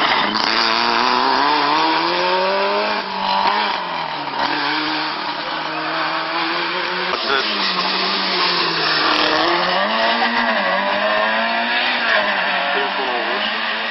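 Rally car engines revving hard: one car accelerating away with its pitch climbing over the first few seconds, then a Ford Escort Mk2 approaching, its revs repeatedly rising and falling with gear changes and lifts.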